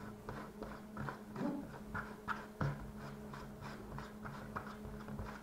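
A fork mixing cold butter into flour in a baking pan: irregular short taps and scrapes of the fork on the pan, a few a second, over a steady low hum.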